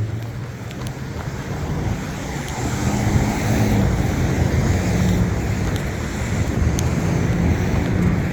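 Road traffic passing through an intersection: engine hum and tyre noise that swell louder from about three seconds in, with wind buffeting the microphone.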